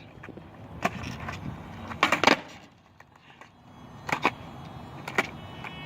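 Skateboard rolling on pavement, with a few sharp clacks of the board hitting the ground spread through it and a short lull in the middle.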